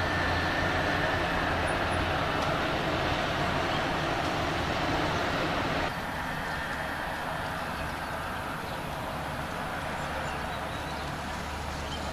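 Steady road traffic noise with a low hum underneath, a little quieter from about six seconds in.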